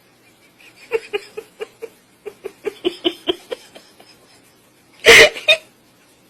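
A pet making a rapid run of short, pitched sounds, about four a second for two and a half seconds, then one loud, sudden noisy burst near the end.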